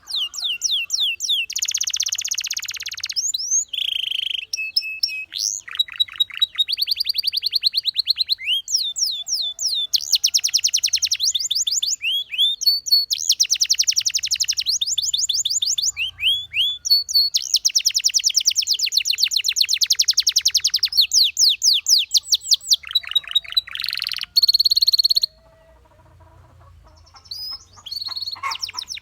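Canary singing: long trills of rapidly repeated notes, some as quick sweeps, others held on one pitch. A short pause about three-quarters of the way through, then it sings again more softly.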